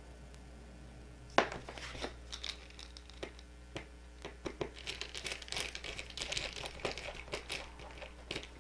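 Fingers twisting the bare stranded copper ends of a cable together. There is a sharp click a little over a second in, then a run of small crinkly ticks and rustles as the strands are worked.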